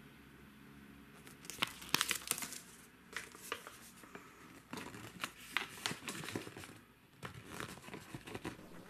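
Folded paper collector's guide leaflet being unfolded and handled, crinkling and rustling in irregular crackles that start about a second in, with a brief pause near the end.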